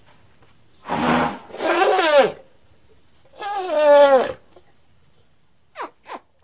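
Elephant calf calling three times, each a pitched call under a second long that falls in pitch, followed near the end by two very short, higher calls.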